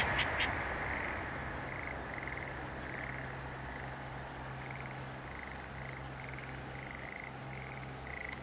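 Frogs calling from a flooded rice paddy: a dozen or so short trilled croaks, one after another, over a steady low hum. In the first half second the rumble and wheel clatter of a passing Tokaido Shinkansen train fade away.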